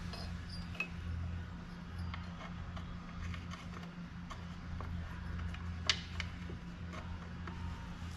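Small metal parts of a mower seat's spring suspension clicking and clinking as they are handled and fitted together, with a sharper click about six seconds in, over a steady low hum.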